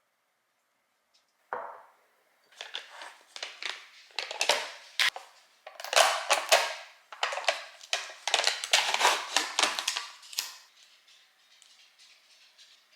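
Hard objects clattering and knocking in a busy run of sharp clicks, starting about a second and a half in and stopping near the end.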